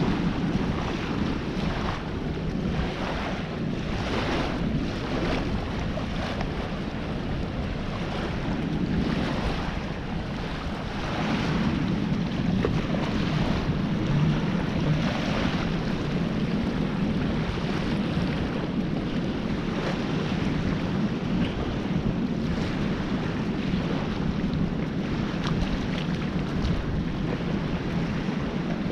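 Wind buffeting the microphone over the wash of small waves on a sandy lagoon beach, a steady noise that grows louder about eleven seconds in.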